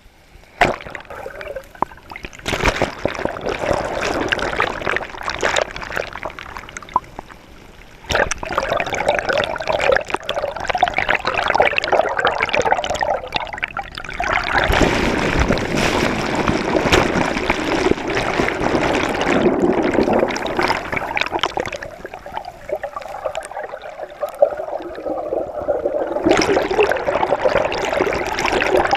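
Water splashing and trickling in a dense, noisy wash that swells and changes character several times.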